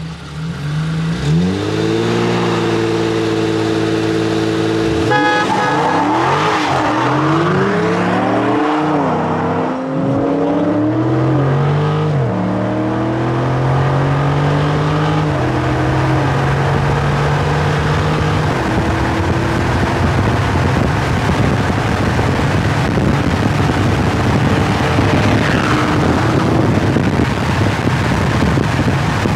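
Two cars, a Dodge Charger Scat Pack and an Infiniti Q50 Red Sport, racing, heard from inside one of them. The engines are held at steady revs for a few seconds, then launch at full throttle, their pitch climbing and dropping through several upshifts. After that comes a steady rush of road and wind noise at speed.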